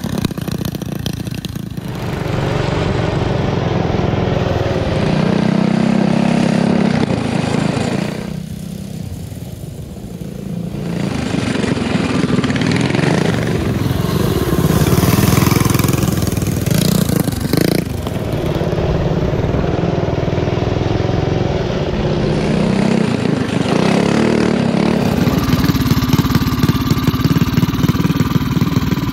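Mini bike's Tillotson 225cc single-cylinder engine running under way, its pitch rising and falling with the throttle, dropping off briefly about nine seconds in before picking back up.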